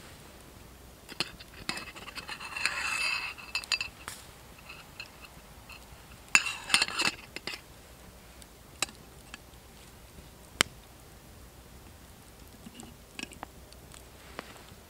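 A metal utensil clinking and scraping against a small metal camp kettle sitting on a campfire, in two bursts a few seconds apart. Sharp single clicks, like the fire crackling, come in between.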